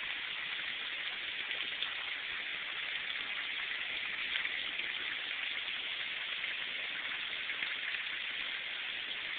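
Heavy rain falling steadily, an even hiss with no breaks, thin and cut off in the highs as heard through a cellphone microphone.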